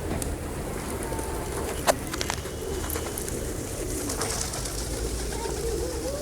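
A large flock of pigeons cooing, many low wavering calls overlapping, with a sharp click about two seconds in.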